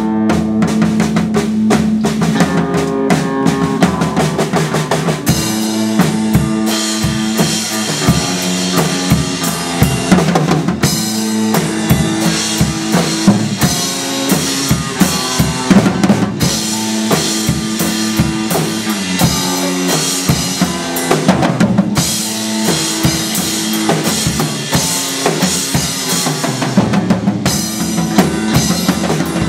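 A band playing music driven by a drum kit, with bass drum and snare hits over sustained pitched notes. The sound shifts into a brighter, fuller section about five seconds in, again near eleven seconds and again about twenty-two seconds in.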